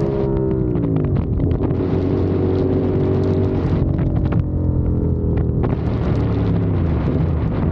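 CFMOTO 450SR's parallel-twin engine and exhaust on the move. The pitch falls over the first second or so as the revs drop, then holds steady. Wind noise on the microphone comes and goes in the second half, and the revs pick up slightly near the end.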